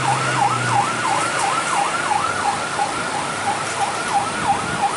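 Electronic warning siren at a railway level crossing, sweeping down and up in pitch about three times a second at a steady level.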